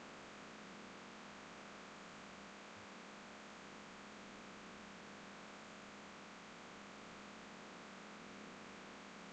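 Near silence: a faint, steady hiss with a low hum, the background noise of the recording microphone.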